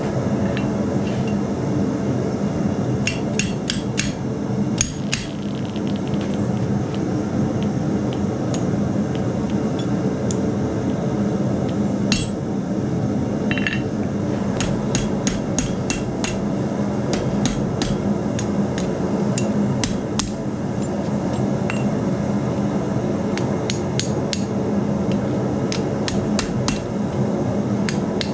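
Blacksmith's hammer striking a steel strap hinge in runs of quick blows with pauses between, over a steady low hum.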